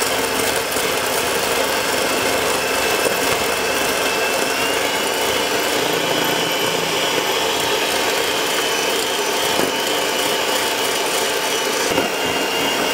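Electric hand mixer running steadily, its twin wire beaters whipping egg whites and sugar into meringue in a stainless steel bowl. The motor's whine rises slightly in pitch about five seconds in.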